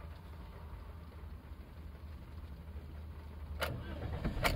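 Low steady cabin hum, then about three and a half seconds in the Toyota Vios's 1.2 L 3NR-FE four-cylinder is cranked by its starter and catches near the end, settling into a cold-start idle.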